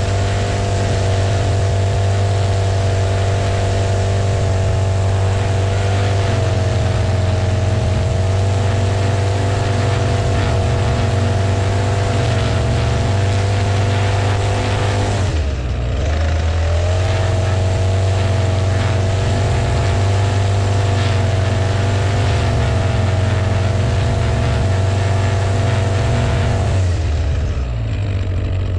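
String trimmer running steadily at speed, cutting grass. Its pitch drops briefly about halfway through and again near the end, then climbs back as the throttle is eased off and squeezed again.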